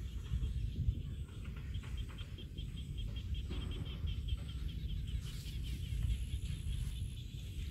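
An insect chirping in a fast, even pulse, high in pitch and steady, over a low rumble of outdoor background noise.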